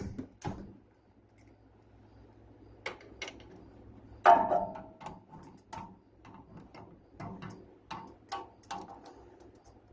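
Hand tools working on metal: scattered sharp clicks, one ringing metal clank about four seconds in, then a run of irregular ticking typical of a socket ratchet being worked.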